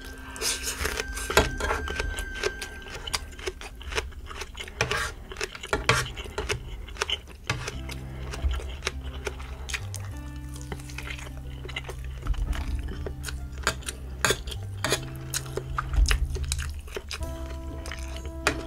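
Spoon and fork clinking and scraping on a food tray, with chewing, over background music with held notes and a bass line.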